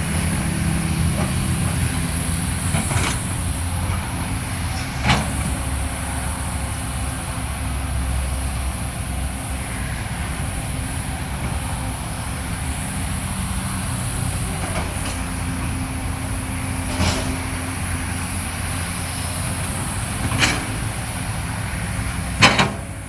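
Caterpillar 320D tracked excavator at work: its diesel engine runs steadily under load. Sharp metallic clanks come about five times, the loudest near the end.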